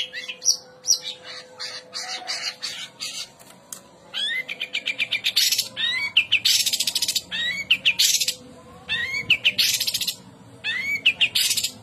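Long-tailed shrike singing: harsh, scratchy rasping notes alternating with quick series of short rising chirps, growing busier and louder about four seconds in.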